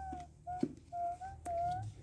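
A dog whining: a thin, high, wavering whine broken into several short pieces, with a couple of sharp clicks between them.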